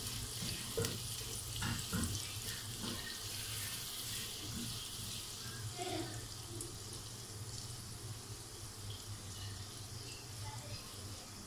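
Sliced onions sizzling in hot oil in a nonstick pot, a steady hiss that slowly fades, with a few light knocks and scrapes of a plastic spoon stirring them in the first few seconds. A steady low hum runs underneath.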